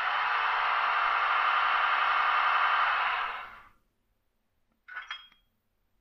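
Zimo sound decoder in a Roco H0 class 111 electric locomotive model playing a steady locomotive running noise through its small loudspeaker while the model stands still. The noise fades out about three and a half seconds in, and a short hiss follows about five seconds in.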